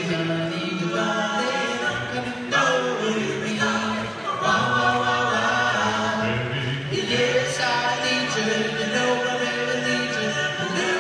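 A cappella vocal group singing a doo-wop song in close multi-part harmony, with sustained backing chords under a lead line.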